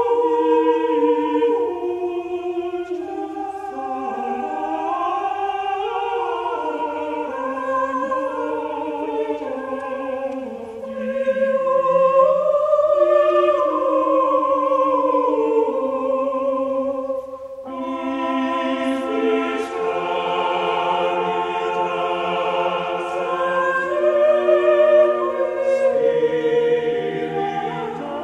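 Recorded classical choral singing: several voices in harmony with vibrato. About seventeen seconds in, the music breaks off abruptly into a fuller, louder passage.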